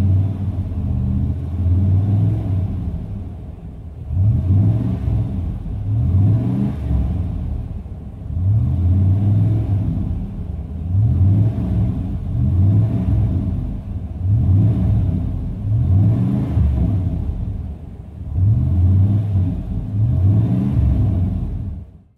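1998 GMC Sierra's 5.7-litre V8 under way through a true dual exhaust with an X-pipe and Street Demon performance mufflers, heard from inside the cab. The engine note surges and rises in pitch again and again, about every two seconds, as the truck is accelerated.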